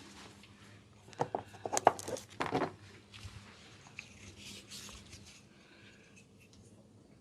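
Hands on skin during an oil massage: a quick burst of sharp slaps and clicks about a second in, lasting about a second and a half, then softer rubbing.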